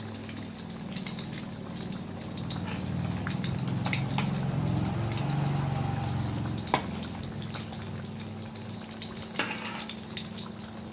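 Hot oil sizzling and crackling in a wok as filled spring-roll-wrapper mini martabak deep-fry. The sizzle swells louder in the middle, and two sharp clicks come in the second half.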